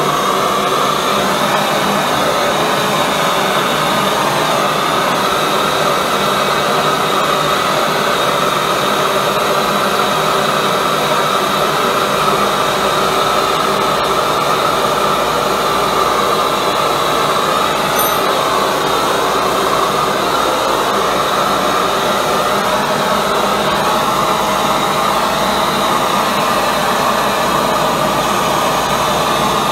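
High-velocity propane forge burner with compressed-air assist, firing: a loud, steady rushing noise with no break, deepening slightly about twelve seconds in.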